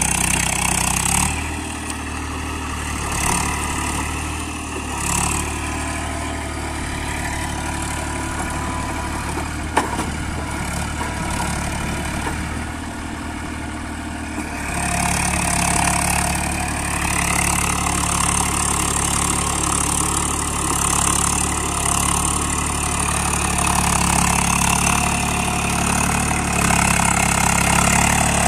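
Eicher 380 tractor's three-cylinder diesel engine running steadily under load while it pulls a rotavator through a flooded paddy field. It is quieter through the first half and gets louder about halfway through. There is a single sharp click about ten seconds in.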